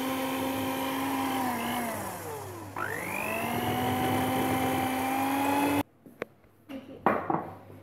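Electric hand mixer running with its beaters in a bowl of banana bread batter; its whine sags in pitch about three seconds in and climbs back up, then cuts off suddenly about six seconds in, followed by a few light knocks.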